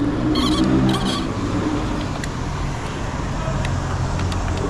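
A motor vehicle engine running steadily with a low hum, with a few faint clicks.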